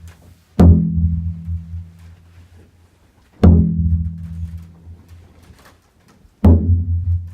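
A large low-pitched drum struck slowly, three single beats about three seconds apart, each one booming and dying away.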